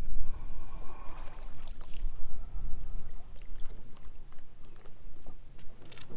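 Wind buffeting the microphone with a heavy low rumble, over water sloshing as a kayak is pulled by its rope alongside a pontoon boat. A few light knocks, with one sharp click near the end.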